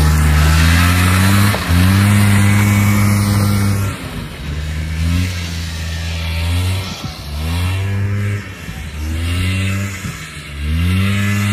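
Four-wheeler engine run hard in repeated throttle bursts: each time the pitch climbs and holds, then falls away as the throttle is let off, about five times over.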